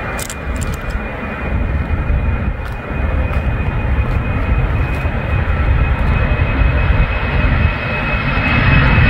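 Boeing 747-400F freighter's four turbofan engines at takeoff power on the takeoff roll: a deep rumble with a steady high whine, growing louder as the jet comes closer.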